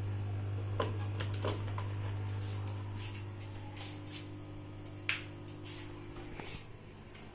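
Steady low electrical hum from aquarium equipment, with a scatter of light clicks and taps as hands handle the tank's metal lid frame. The hum grows fainter over the last few seconds.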